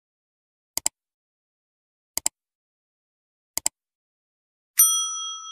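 Subscribe-animation sound effects: three quick double clicks like a mouse button, about a second and a half apart, then a bright bell ding near the end that keeps ringing.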